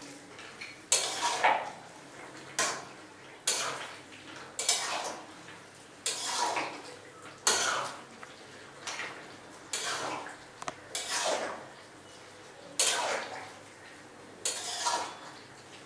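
Metal spatula stirring and scraping vegetables around a steel wok, in short strokes about once a second.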